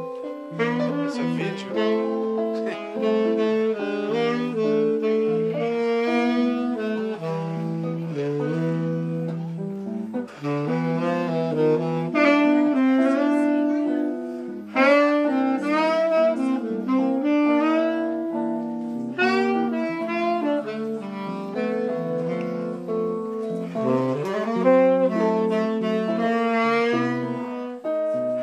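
Tenor saxophone playing a bossa nova melody over chords from a Gibson ES-335 semi-hollow electric guitar.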